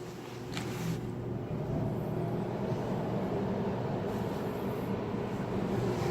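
Refrigerated display case running under test: its refrigeration unit comes up over the first second into a steady low mechanical hum.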